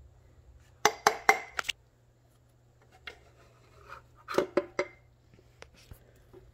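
Sharp metal clinks and taps of hand tools on a connecting rod cap of a Chevy 305 small-block V8 as the cap is worked off the crankshaft: a quick cluster of four or five about a second in, and another of three or four around four and a half seconds in.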